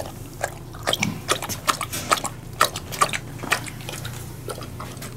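Dog lapping and slurping soupy food from a stainless steel bowl, a string of irregular wet smacks and clicks, two or three a second.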